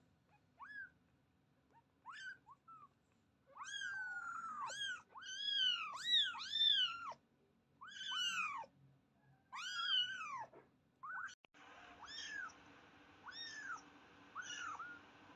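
Very young kittens mewing: short, high, thin mews that rise and fall in pitch. A few sparse mews come first, then longer, louder mews from several kittens overlapping in the middle. About eleven seconds in, a steady hiss comes up and the mews turn quieter and more evenly spaced, about one a second.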